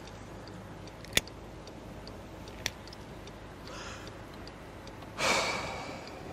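A man breathing out heavily in a car, a faint breath about four seconds in and a longer, louder exhale about five seconds in, over a steady low hum. A sharp click sounds about a second in, and a smaller one near the three-second mark.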